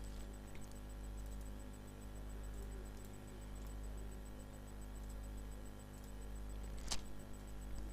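Low, steady electrical hum and hiss from the recording setup, with a single sharp click about seven seconds in.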